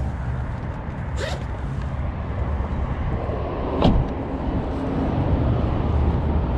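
Steady low outdoor rumble of road traffic from the overpass, with a light click about a second in and a sharper knock just before four seconds.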